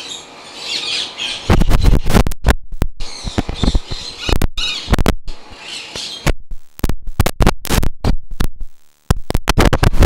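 Parrots calling with high chirps and squawks. From about a second and a half in, they are mixed with a run of loud, irregular knocks and rustles.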